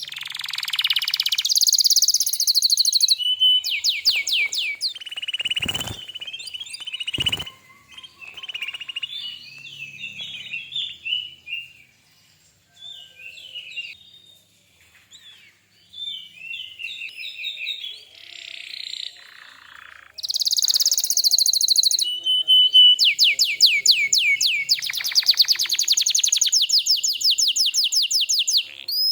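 Canary singing: rapid buzzy trills and rolls, loudest at the start and again from about two-thirds of the way through, with softer twittering between. Two sharp clicks come about a fifth of the way in.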